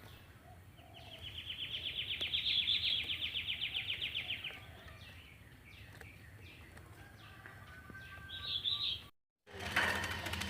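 A caged songbird giving a fast, even trill of about three and a half seconds, followed by a few faint, scattered chirps. The sound drops out briefly near the end.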